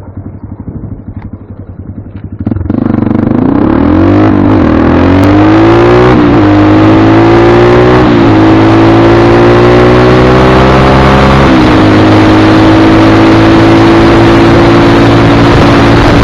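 Motorcycle engine idling with a pulsing beat, then opening up loud and pulling away. Its pitch climbs and drops back at each of several gear changes, then it holds steady at speed.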